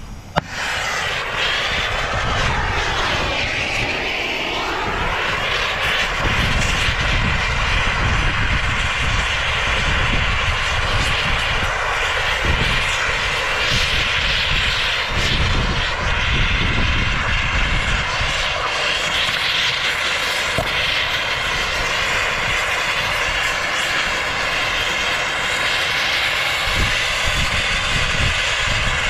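Plumber's turbo torch lighting with a sharp pop about half a second in, then burning with a steady, even rush of flame.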